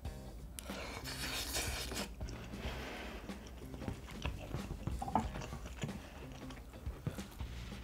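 A person bites into a chunk of sausage from budae-jjigae (Korean army stew) and chews it, close to the microphone.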